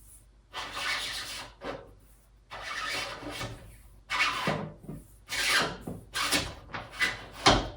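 Plastic magnetic shower-door seal strip being pushed back onto the edge of the glass, rubbing and scraping in about six short strokes, with a thump near the end.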